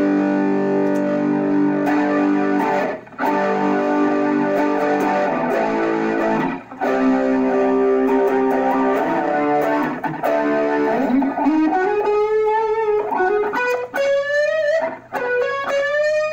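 High-gain distorted electric guitar, a Jackson KVXMG King V played through an Orange Micro Dark hybrid tube amp and PPC108 speaker cabinet. Held chords ring and stop briefly twice, then from about eleven seconds in a single-note lead line bends and slides upward in pitch.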